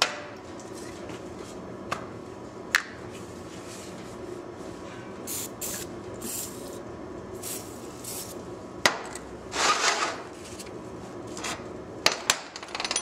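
Metal tools clinking and knocking against a 5R55 transmission case and a steel workbench, with several short hisses of penetrating oil sprayed from an aerosol can, the longest about ten seconds in, as lubricant for reaming the servo bore. A rapid run of clicks comes near the end.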